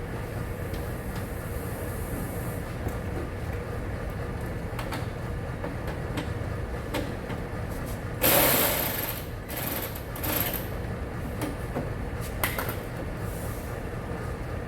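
Steady workshop hum with scattered light clicks and knocks of car parts being fitted. About eight seconds in comes a loud, noisy rush of about a second, followed by shorter bursts and a sharp click.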